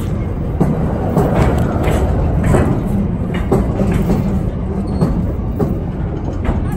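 Steel wheels of loaded container freight wagons rolling past at track level: a steady, loud rumble with repeated sharp clanks and clacks from the wheels and couplings.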